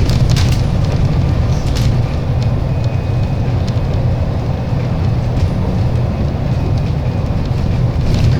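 Running noise of an Alexander Dennis Enviro 300 bus on a MAN chassis, heard on board: a steady, heavy engine and road rumble with a few brief rattles.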